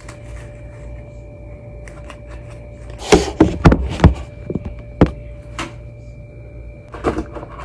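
Handling noise from a phone camera being picked up and repositioned: a quick cluster of knocks and bumps about three seconds in, another knock around five seconds, and a few softer taps near the end, over a steady faint hum.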